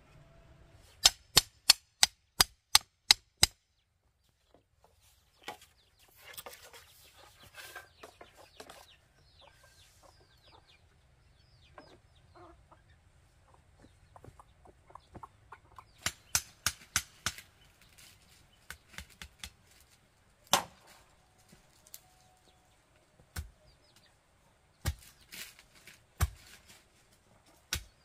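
A quick run of about eight sharp knocks, about three a second, as a machete strikes bamboo stakes. Later come another cluster of knocks and scattered single heavier blows of tools into the soil.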